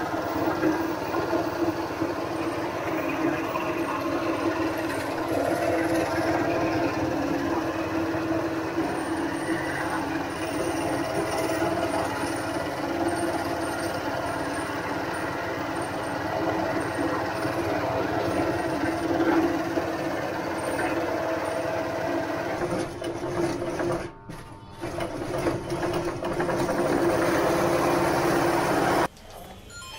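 Belt-driven meat grinder running steadily as it grinds wafer biscuits through its plate, with a steady hum. The sound dips briefly about three-quarters of the way through and drops off sharply near the end.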